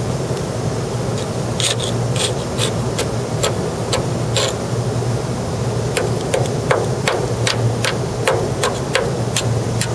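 Steel hand scraper chipping and scraping loose non-skid coating and paint off a corroded steel helideck: a run of sharp, irregular scratchy knocks, coming faster in the second half. The coating lifts off because the steel is corroding underneath it. A steady low hum runs underneath.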